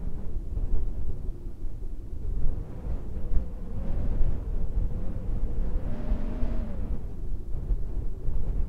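Wind buffeting the microphone on an exposed ridgetop: a gusty low rumble that keeps rising and falling.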